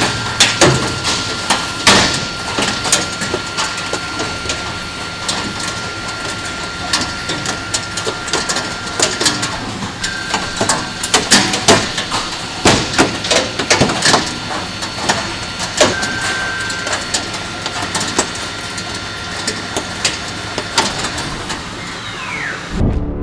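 CNC machining centre drilling deep holes into a metal block without coolant, with chips rattling and clicking against the machine guarding over a steady high whine. The whine stops about a third of the way through and returns briefly twice, and a pitch falls off near the end.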